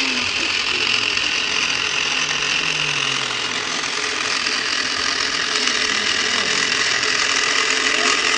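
Small electric drive motor and plastic gearbox of a 1:18 scale six-wheel RC truck whirring steadily as it drives over loose gravel.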